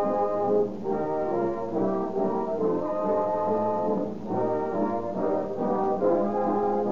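Orchestral music with brass prominent, playing a steady succession of held notes as a radio-show musical bridge.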